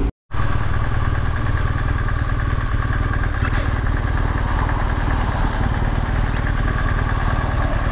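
Motorcycle engine running steadily while riding, under a continuous rushing noise. The sound cuts out completely for a moment near the start.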